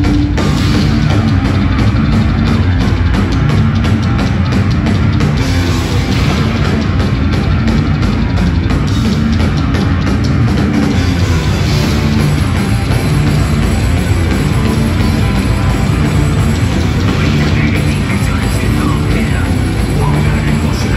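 A thrash metal band playing live at full volume, with distorted electric guitar, heavy bass and fast drums, recorded from within the crowd.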